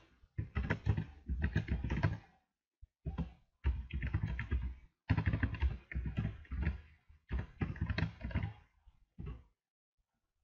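Computer keyboard keys clicking in quick runs as a terminal command is typed, in several bursts with short pauses. The typing stops about nine and a half seconds in.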